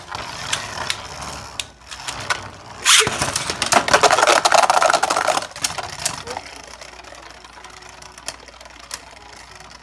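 Two plastic Beyblade Burst Surge spinning tops, Super Hyperion and Kolossal Helios, whirring and scraping around a plastic stadium. A second top is launched about three seconds in, followed by a couple of seconds of loud rattling and clashing. It settles into a quieter whir with occasional clicks.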